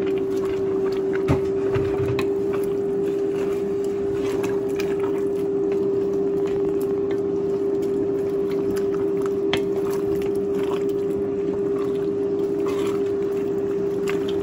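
A large steel pot of meat and cassava leaves simmering and being stirred with a spoon, with scattered light clicks and scrapes against the pot, over a steady hum that holds one pitch.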